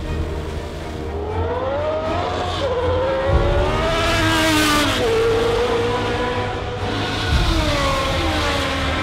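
Racing car engine at high revs, its pitch climbing and dropping as it accelerates and shifts, with a sharp fall in pitch about five seconds in, like a car passing.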